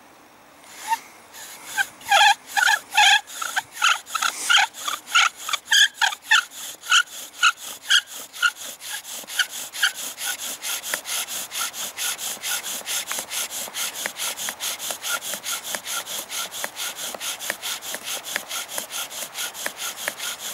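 Bow drill for friction fire: the wooden spindle, driven back and forth by the bow's cord, rubs and squeaks in the notched wooden fireboard with every stroke. The strokes start at about two a second with sharp squeaks and speed up to about four a second, the squeaks giving way to an even rubbing.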